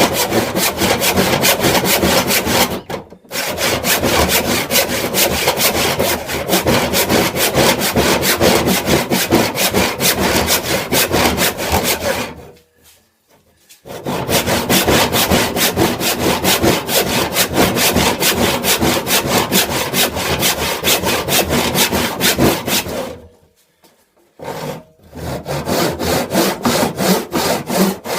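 Wood being sawn by hand with a fast, even rhythm of strokes. The sawing stops briefly about 3 s in and pauses for a second or two around the middle and again near the end.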